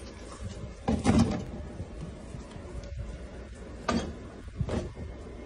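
A wooden cabinet door knocking against its frame as a Labrador retriever pushes at it: a loud knock about a second in and two more near the end.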